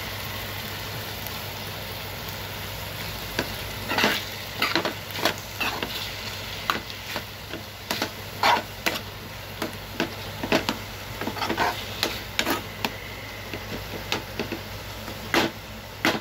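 Metal spoon stirring chicken mince and dill in a metal frying pan: irregular clinks and scrapes of spoon against pan, starting about three and a half seconds in, over a steady sizzle of the frying mince.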